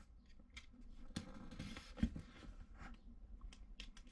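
Utility knife blade slicing and scraping along the sealed edge of a cardboard box, a faint light scratching with a few small clicks.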